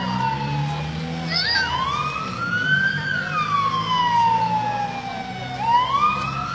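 Fire engine siren wailing, its pitch rising quickly and then falling slowly, about one cycle every four seconds, over a low steady rumble.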